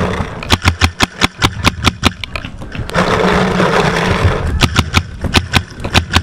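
Empire Axe Pro paintball marker firing rapid strings of sharp pops, about six a second, broken for about a second and a half in the middle by a steady rushing noise.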